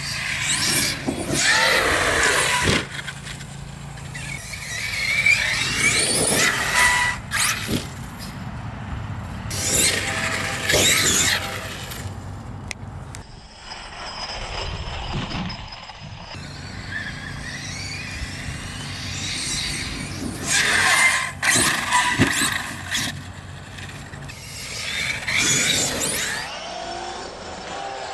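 Arrma Kraton 8S EXB RC monster truck running, its brushless motor whining up and down in pitch through about five or six hard throttle bursts, with tyre noise on the ground between them.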